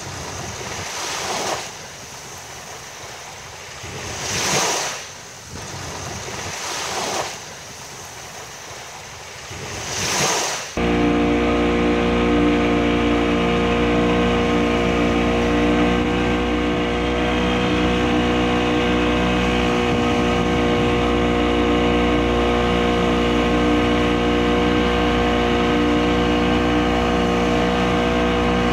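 Small waves breaking and washing onto a sandy shore, four surges about three seconds apart. About ten seconds in this cuts abruptly to the steady running drone of a Yamaha outboard motor driving a small open fishing skiff at speed over choppy water.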